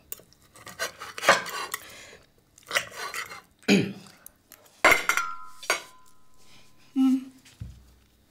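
Cutlery clinking and scraping against a ceramic serving bowl and plates, in a string of separate clinks. About five seconds in one clink rings on briefly.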